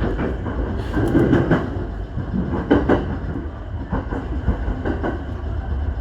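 Electric commuter train running at speed, heard from inside the car: a steady low rumble with irregular clacks of the wheels over rail joints.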